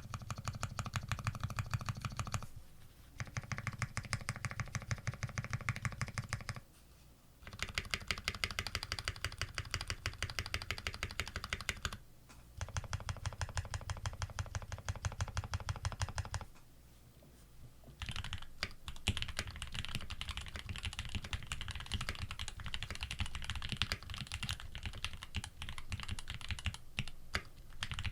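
Custom TX65 mechanical keyboard with lubed Tealios V2 linear switches on a brass plate and GMK keycaps, typed on in fast, evenly spaced runs of keystrokes with short pauses between them. About eighteen seconds in, the typing turns denser and less regular.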